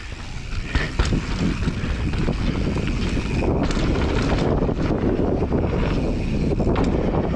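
Mountain bike riding fast downhill on a dirt trail: wind buffeting the camera microphone over a low, steady rumble of the tyres on dirt, with occasional sharp knocks from the bike over bumps.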